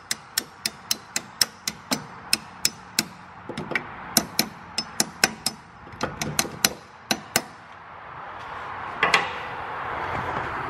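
Hammer striking a steel drift to tap a spacer sleeve down into a Honda Civic's front strut fork: a rapid series of sharp metal taps, about three a second, that stops about seven seconds in. Handling noise and a single thump follow near the end.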